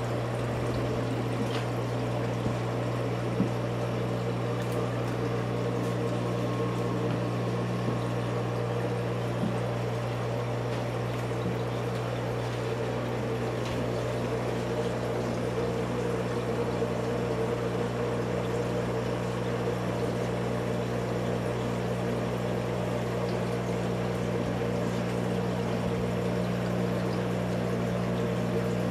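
Reef aquarium's water pumps running with a steady low hum over a constant rush of flowing, trickling water.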